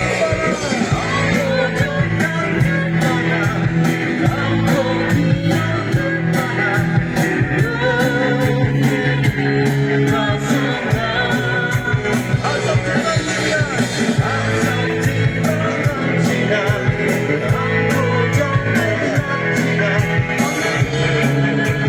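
Live praise and worship band playing a rock-style song at a sound check: a singer over a steady drum beat, bass and guitar.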